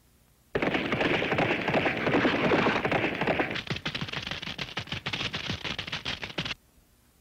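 Cartoon sound effect: a dense rattle of rapid clicks that starts abruptly, thins to separate clicks about halfway, and cuts off suddenly near the end.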